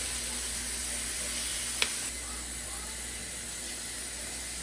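Ground beef sizzling in a frying pan, a steady hiss, with a single sharp click about two seconds in.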